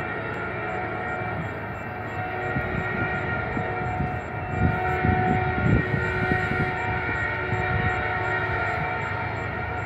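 Horn of an approaching Canadian National freight locomotive sounding as a steady chord, over the train's low rumble, which swells through the middle.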